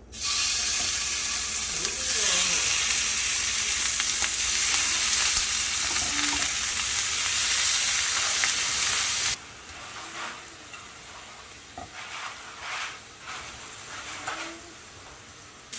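Beef chuck flap steaks sizzling loudly as they fry in a nonstick frying pan. About nine seconds in the sizzle cuts suddenly to a much quieter frying sound with a few light clicks.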